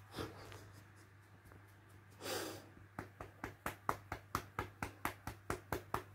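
A relaxed, cupped hand patting a large cat's rump in quick, even smacks, about five a second, starting about three seconds in. Before that, a brief rushing, breathy sound lasting about half a second.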